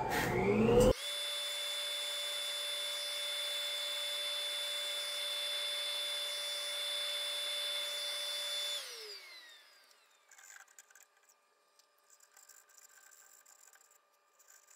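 Small high-speed power tool motor whining at a steady pitch, then spinning down with a falling whine about nine seconds in. Faint scratching of sandpaper worked by hand in the bowl's yarn slot follows near the end.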